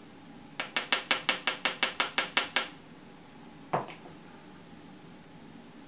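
A loose-powder jar tapped rapidly, about a dozen light taps in two seconds, to shake powder out through its sifter, then a single knock about a second later.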